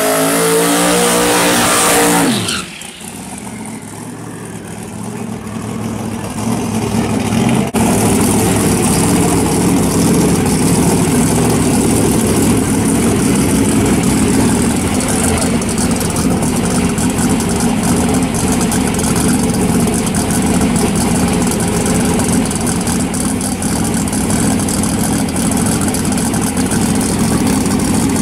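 Drag-race Mustang's engine revving high during a burnout, its pitch climbing and falling, then dropping off sharply about two and a half seconds in. After an abrupt change near eight seconds, the engine runs loud and steady, idling close by for the rest of the time.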